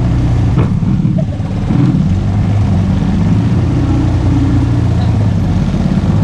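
ATV engine running steadily under way, a loud low drone that eases off briefly about a second and a half in, then picks up again.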